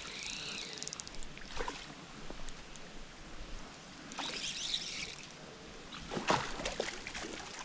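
Light water trickle and rustling at the pool edge, then a few louder splashes about six seconds in as a hooked trout thrashes at the surface.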